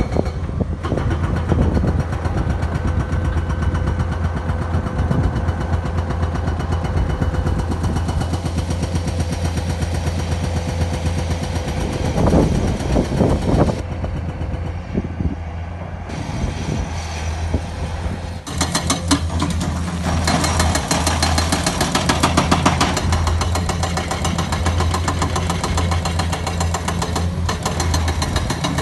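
Excavator's diesel engine running steadily under load while it works limestone. About two-thirds of the way through, a rapid, continuous hammering starts up and carries on.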